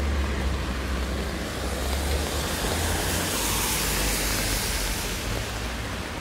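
Car tyres hissing on a wet road as a car passes, swelling about halfway through and then fading, over steady rain noise and a low rumble.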